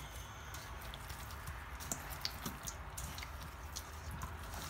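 Faint wet squelching and light clicks as a gloved hand tosses raw chicken wings, wet with seasoning and orange juice, in a stainless steel bowl.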